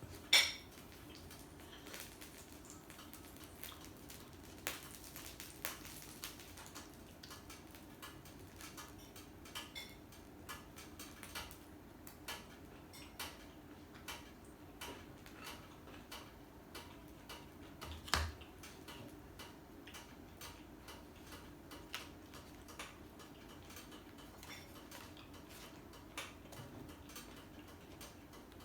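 Utensils clicking against dishes during a meal: light scattered clicks and taps roughly once a second, with a sharper knock near the start and another about two-thirds through, over a faint steady hum.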